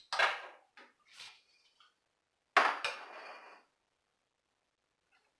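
Sharp metallic clanks of hand tools working on engine bolts: two loud clanks about two and a half seconds apart, with lighter clinks between, as the bolts are broken loose with a wrench and socket.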